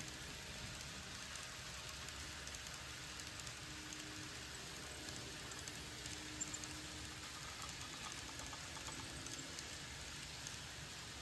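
Model freight train rolling past, its cars' wheels making a steady, fine rattle of small ticks on the track, with a faint on-and-off hum.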